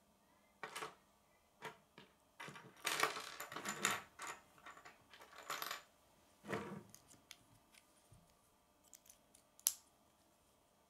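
Plastic K'nex rods and connectors clicking and clattering as they are handled and fitted together on a wooden table, with a burst of rattling a few seconds in and a single sharp click near the end.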